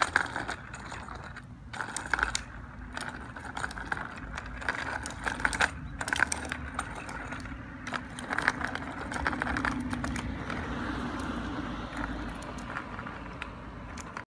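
Child's small bicycle with training wheels rolling along a concrete sidewalk, rattling steadily with many sharp clicks and clacks.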